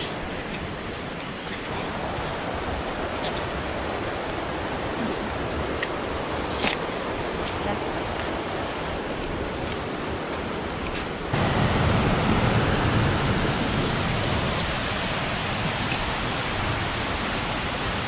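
Steady rush of flowing water from a rainforest river and waterfall. About eleven seconds in it becomes louder and deeper.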